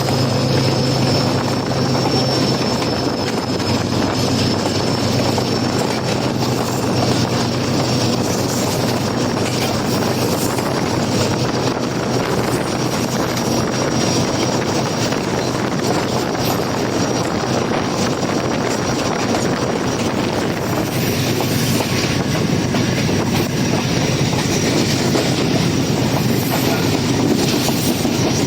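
Train running along the track: a steady rumble and clatter of wheels on rail, with a thin, steady high-pitched whine throughout.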